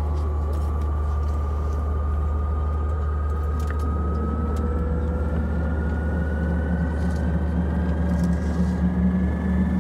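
Antonov An-24RV's Ivchenko AI-24 turboprop running, heard inside the cabin: a steady low propeller drone with a thin turbine whine that climbs slowly in pitch. The low drone grows stronger about four seconds in.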